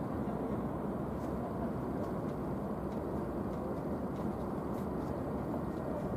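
Steady rumble of a Union Pacific grain train's freight cars rolling past.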